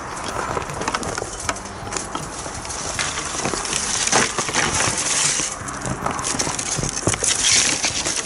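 Footsteps through overgrown undergrowth: irregular crunching steps on twigs and debris, with leaves and branches rustling as they brush past, loudest about four seconds in and again near the end.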